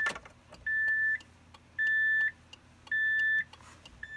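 Electronic beeps, one steady high tone about half a second long repeating roughly once a second, sounding as the ignition key is turned to ON.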